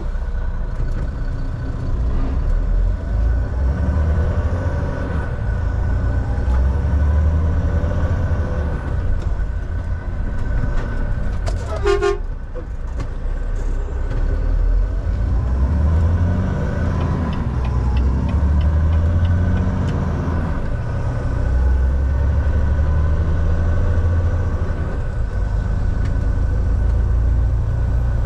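Semi truck's diesel engine running steadily with road noise while driving, a low rumble that rises and falls in pitch. About twelve seconds in comes one short horn toot.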